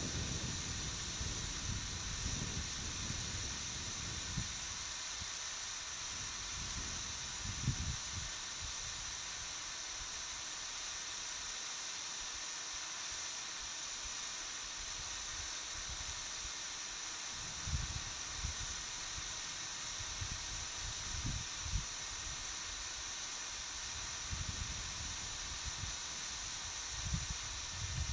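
Steady high hiss throughout, with soft low gusts of wind buffeting the microphone now and then.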